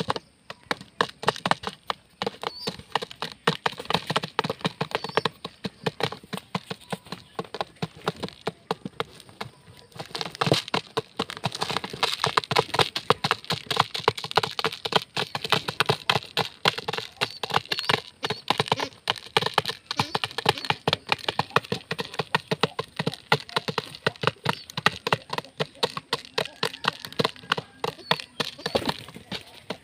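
Pigeons pecking lentils out of a plastic jar: rapid, irregular beak taps and clicks on the plastic, coming thicker and a little louder from about ten seconds in.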